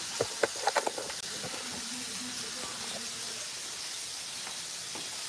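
Steady sizzling hiss of food frying in oil in a pan on the stove. A few sharp clicks and knocks from the phone being handled in the first second.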